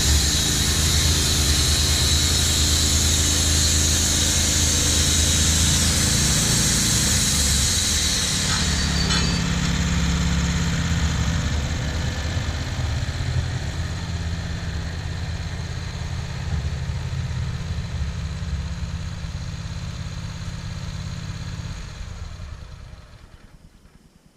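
Wood-Mizer LT15 sawmill's engine running, with the band blade cutting through a red pine log and giving a strong high hiss. About eight seconds in the hiss stops as the cut ends, and the engine runs on more quietly before dying away near the end.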